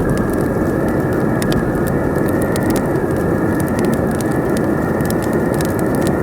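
Wood fire crackling, with frequent sharp pops, over a loud steady wind.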